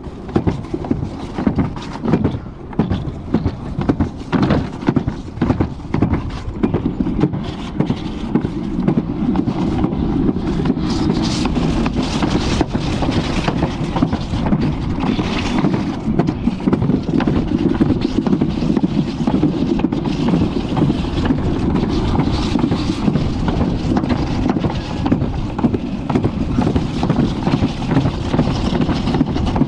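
Alpine slide sled running fast down its trough, the sled's contact with the track making a continuous rumble. It clatters with quick uneven knocks for the first several seconds, then settles into a steady rumble, with rushing air on the microphone.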